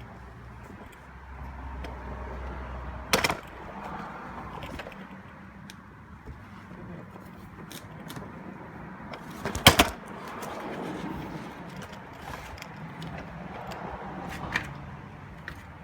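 A 2012 Audi A4 2.0T makes two loud, sharp bangs from the front of the car, about three seconds in and again near ten seconds, with a smaller one near the end, over a low steady hum.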